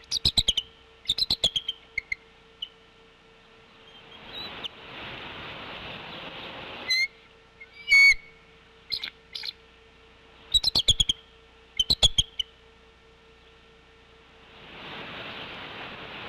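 Bald eagle giving its high-pitched chattering call in a series of short bursts of rapid notes, about eight bursts in all, the loudest and briefest about eight seconds in. A steady hiss rises between some of the calls and again near the end.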